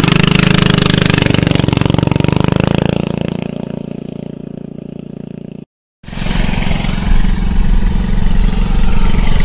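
Coleman CT200U mini bike's single-cylinder four-stroke engine running as the bike pulls away, its sound fading as it moves off. After a brief cut to silence, a loud low rumble heard from inside a moving car's cabin.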